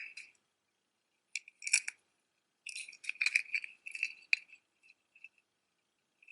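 Pieces of jewelry (metal chains, beads and stones) clinking and rattling together as they are handled and sorted. There are short spells of clinks about a second and a half in and again from about three to four and a half seconds, with a few single clicks in between.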